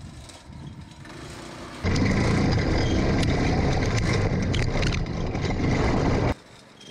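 A go-kart's Predator 212 single-cylinder four-stroke engine running as the kart drives over dirt. It sounds moderate at first, then loud and close from about two seconds in, and cuts off suddenly near the end.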